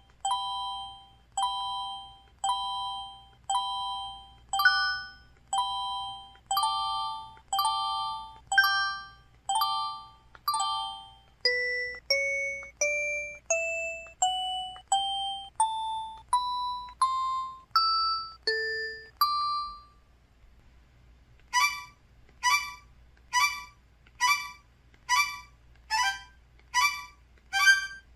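Mobile phone system tones from an EVER EV-W530's Qualcomm CMX 72-voice synthesizer, heard dry through the handset's hands-free output: first a run of repeated two-note chimes, then a climbing scale of single notes. After a short pause near the three-quarter mark, a quicker run of short beeps follows, about two a second.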